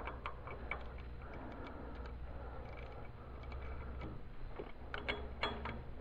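Ratchet wrench clicking as a 9/16 socket tightens the steel drive studs of a container connector: a run of small, irregular pawl clicks, with a few louder clicks about five seconds in.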